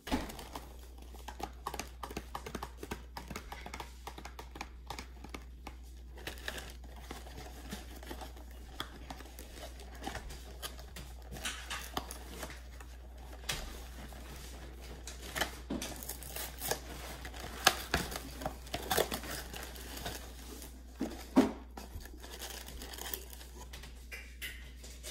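Crispy fried chicken being bitten and chewed: scattered crunching and tearing of the fried breading, over a steady low hum.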